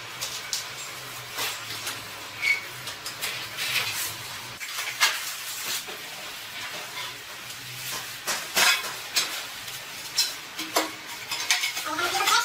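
Irregular scraping and clicking from hand work on a porcelain tile floor: tiles shifted into place and a tool scraped along the joints, with a few sharper knocks.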